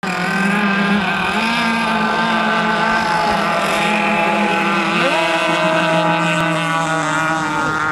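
Radio-controlled racing speedboats running flat out, their small motors giving a steady high-pitched drone with several tones at once from more than one boat. About five seconds in, one motor's pitch rises sharply; near the end one falls away and another rises.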